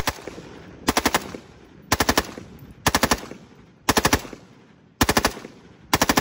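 LMT MRP external-piston rifle with a 14.5-inch barrel firing unsuppressed on full auto in short bursts of about four shots, roughly one burst every second, the report trailing off between bursts.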